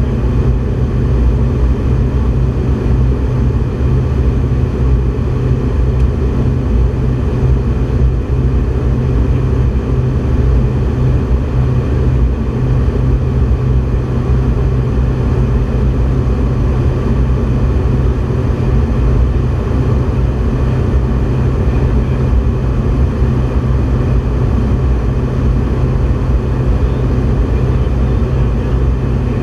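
Steady, loud aircraft cabin noise on a microgravity research flight: a constant low engine and airflow rumble.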